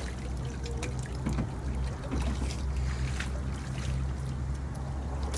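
Water trickling and dribbling, with scattered small clicks over a steady low rumble.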